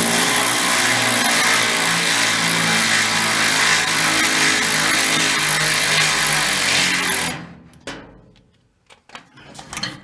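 Power drill running steadily for about seven seconds, then stopping, while fastening the last caster wheel to the bottom of a metal filing cabinet; a few light clicks and knocks follow.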